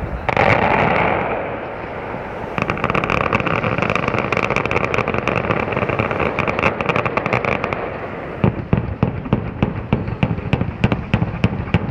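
Fireworks display: one loud burst near the start, then a long stretch of hissing full of dense crackling, then from about eight and a half seconds in a rapid run of sharp bangs, several a second.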